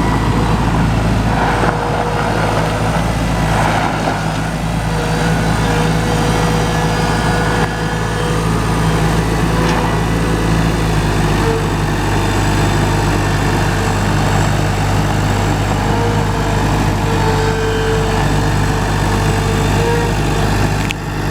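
Gehl 7810E skid steer's engine running steadily, its pitch shifting slightly about halfway through.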